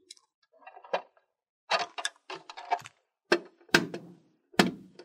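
Hard plastic toy doctor case handled and its lid shut: a run of plastic clacks and knocks, the loudest three between about three and a half and four and a half seconds in.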